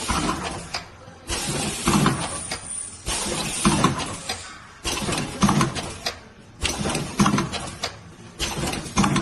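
CFGB 80 tea dosing and cup-sealing machine running through its packing cycle: a burst of clattering and hiss repeats evenly about every second and three quarters.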